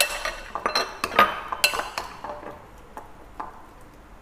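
A metal spoon clinking and scraping against a ceramic bowl while pork belly is stirred in its marinade. There are several sharp clinks about every half second in the first two seconds, then fainter, sparser taps.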